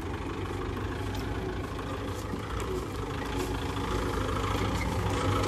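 Tractor diesel engine running steadily under a low hum, growing slightly louder toward the end.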